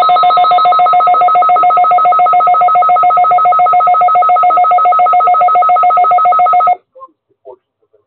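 Weather alert radio's alarm going off for an Emergency Alert System message: a loud two-tone beep pulsing about eight times a second, which cuts off suddenly near the end.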